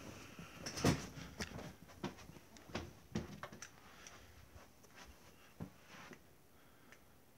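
A scattered series of short clicks and knocks, the loudest about a second in, dying away after about six seconds.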